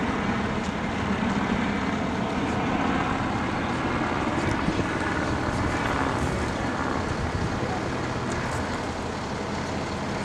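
Fire engine's diesel engine idling, a steady low hum, with faint voices over it in the first part.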